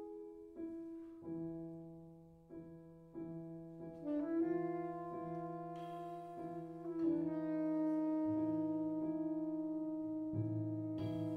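Slow jazz ballad: a saxophone holds long melody notes over evenly repeated piano chords, with double bass notes coming in underneath about a second in and moving lower later on.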